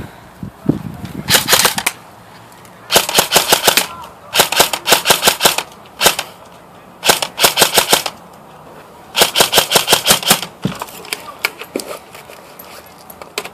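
Airsoft gun firing full-auto in rapid bursts of about a second each, five bursts with a single shot between them, then a few scattered shots near the end.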